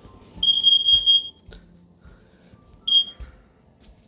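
Combination smoke and carbon monoxide alarm's piezo horn sounding during a test: one long, loud, high-pitched beep of about a second, then a short beep about two seconds later.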